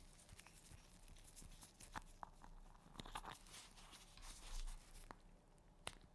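Gloved hands rubbing and crinkling close to the microphone: faint rustling with scattered sharp crackles, a few standing out near the middle and near the end.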